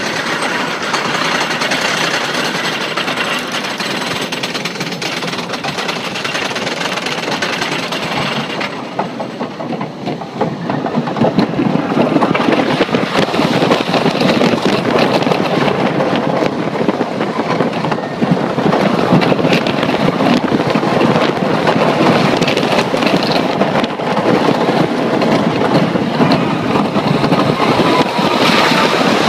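Wooden roller coaster train on Millennium Flyer trains, first clattering steadily as it climbs the lift hill with rapid anti-rollback clicking. It goes briefly quieter about nine seconds in, then runs louder down the wooden track as a steady rattling rumble with wind on the microphone.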